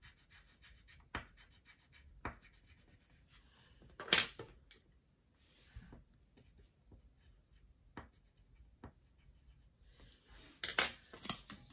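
Felt-tip markers scratching faintly on paper as a small drawing is made, with a few sharp clicks and knocks; the loudest comes about four seconds in and several more come close together near the end.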